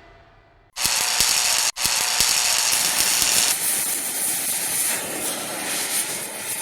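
Welding arc hissing and crackling. It starts abruptly about a second in, breaks off for an instant just before two seconds, then runs on steadily.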